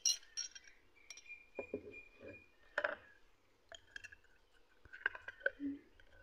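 A metal spoon clinking and scraping against a small glass jar, in a scatter of short, light clinks and clicks, the sharpest right at the start and another a little before the middle.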